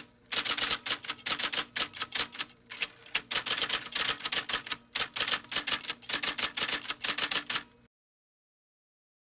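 Typewriter sound effect: a fast run of key clacks with a few short breaks, keeping time with on-screen text typing out letter by letter, stopping about eight seconds in.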